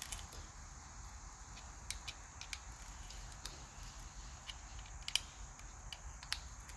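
Piston ring compressor being tightened around a piston: its ratchet clicks in short, irregular runs. The compressor is new and very stiff to turn.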